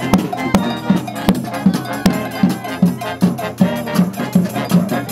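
Marching band music with brass and drums, playing to a steady beat about two and a half times a second.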